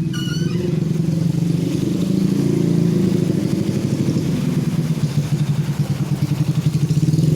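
A motorcycle engine running close by, steady with a fast low pulsing throughout.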